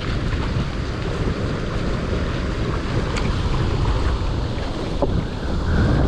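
Strong wind buffeting the microphone in a steady low rumble, with choppy water washing against the shoreline rocks.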